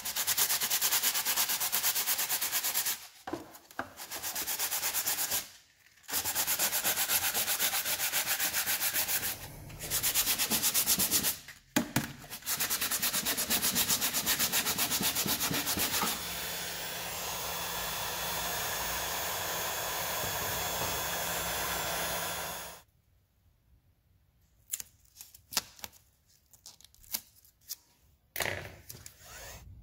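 Sanding in several runs of a few seconds each, broken by short pauses. About sixteen seconds in it becomes a steadier stretch with a low hum underneath, then stops about 23 seconds in, leaving faint clicks and handling noises.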